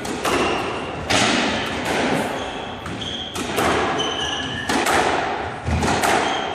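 Squash rally: the ball cracking off rackets and the court walls, a sharp echoing hit every half second to a second, with sneakers squeaking on the hardwood floor between hits.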